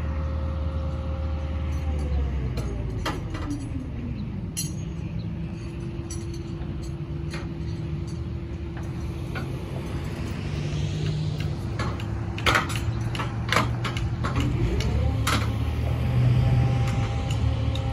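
Engine of a barge-mounted crane running steadily, its pitch dropping about two seconds in and climbing back near the end as it works the hoist. Several sharp metal clanks come in the second half as the metal pier section is lifted and handled.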